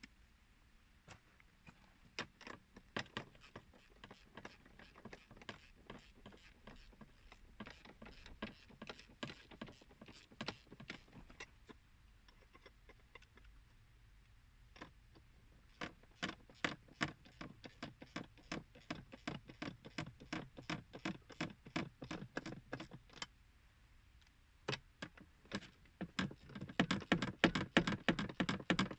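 Runs of sharp clicks and taps, scattered at first, then regular at about three a second from roughly halfway, pausing briefly and returning louder near the end.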